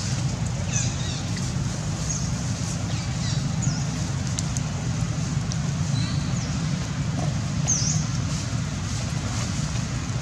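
Steady low rumble of outdoor background noise, with short high chirps scattered through it.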